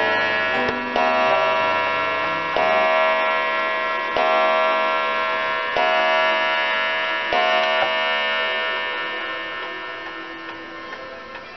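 Waterbury "Huntley" parlor clock's spring-driven brass movement striking on its wire gong: ringing blows about every second and a half, each tone hanging on, the last about seven seconds in, after which the ring fades away.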